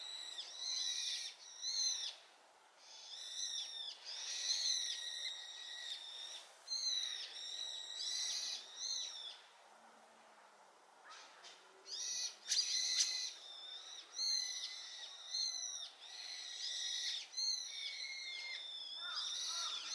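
Brown-eared bulbuls calling loudly: a chorus of high-pitched, overlapping calls that bend up and down, with one bird answering the flock. The calls pause briefly about two seconds in and again around ten seconds.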